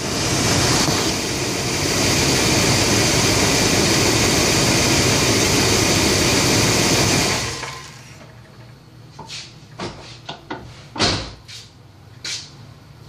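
The 1996 Suburban's 5.7 Vortec V8 runs steadily, then winds down and stops about seven and a half seconds in. After that there are only a few light clicks and knocks.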